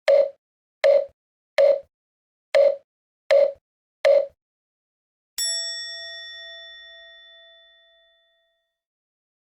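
Six short pitched knocks at uneven spacing, then a single bell-like ding that rings out and fades over about three seconds, with dead silence between them: added sound effects.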